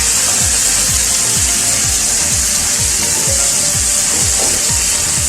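Chopped tomatoes and onions sizzling in hot oil in a pan, with a spatula scraping as they are stirred. Under it runs background music with a steady beat of about two thumps a second.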